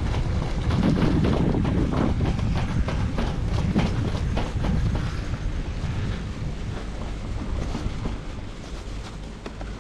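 Blizzard wind buffeting the microphone in heavy, gusty rumbles, strongest in the first half and easing near the end, with scattered short crackles and ticks.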